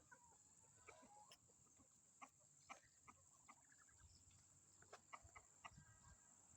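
Faint chicken clucking: short, scattered clucks and clicks over a steady high-pitched hiss.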